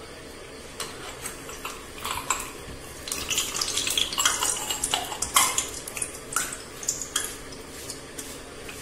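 Metal kitchen utensils clinking and knocking as an idiyappam press is handled and filled with dough. The knocks are light and irregular, busiest in the middle.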